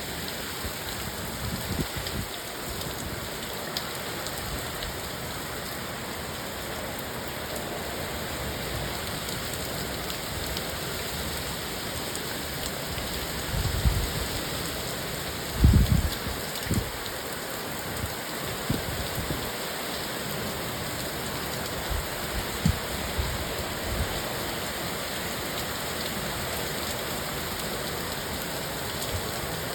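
Heavy rain falling steadily, an even hiss, with a few short low thuds breaking through, the loudest about halfway.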